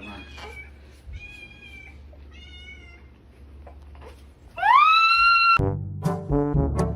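A cat meowing: three short, thin meows, then a louder meow that rises in pitch about four and a half seconds in. Loud brass music with a bouncing beat starts right after it.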